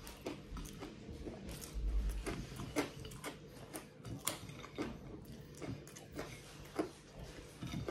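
Chewing of fried garlic pieces, heard as irregular sharp clicks, with a low bump about two seconds in.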